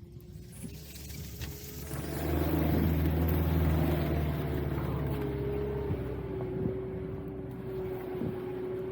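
A motor vehicle's engine, growing louder over the first two seconds, loudest about two to five seconds in, then running on steadily with a low hum.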